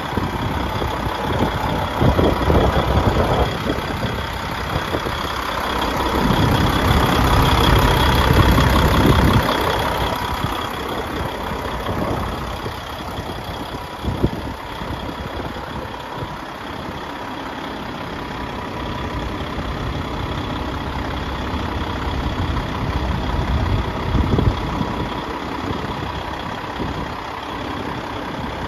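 DAF XF105.460 truck's PACCAR MX 12.9-litre six-cylinder diesel idling steadily, growing louder for a few seconds about a third of the way in, with one short knock about halfway.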